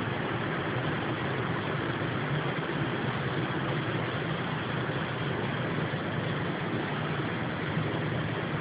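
Steady low drone under a constant hiss, unchanging throughout: the unexplained background noise that the recorder likens to a helicopter, between a plane and a helicopter.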